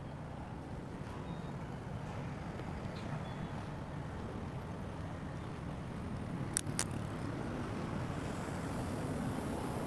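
Steady low rumble of a road vehicle travelling, its engine and road noise slowly growing louder, with two sharp clicks in quick succession about six and a half seconds in.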